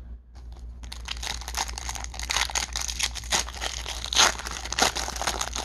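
A foil baseball card pack wrapper being torn open and crinkled by hand: a dense run of crackling that starts about half a second in, with a louder tear near the end.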